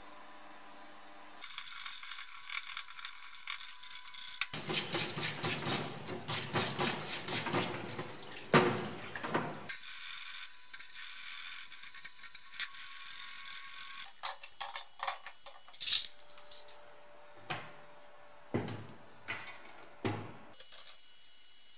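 Solvent splashing from a parts-washer brush over CV joint parts, and steel CV joint parts (balls, cage, races) clinking and clattering as they are handled and set down. Near the end come a few separate sharp clinks.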